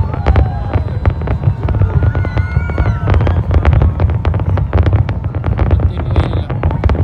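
Aerial fireworks display going off: a dense, rapid crackle of bangs over a steady low rumble, with a few brief whistling tones in the first half.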